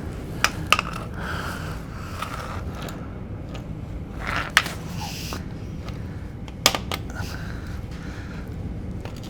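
A few short, sharp clicks and knocks of tools or metal parts being handled, four in all, over a steady low hum.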